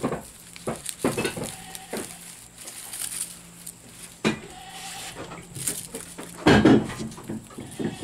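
A goat bleats loudly once, about six and a half seconds in, over soft clicks and rustling as string is handled and knotted around onions on a plastic tablecloth.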